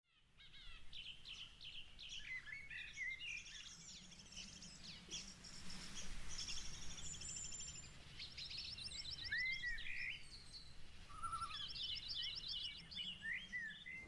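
Several birds chirping and trilling, a mix of quick rising and falling chirps and fast rattling trills, over a faint steady low rumble.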